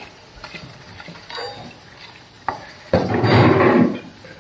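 Light clinks of a pot and utensils, then about three seconds in a sudden rush lasting about a second as rice is tipped into a pot of boiling water.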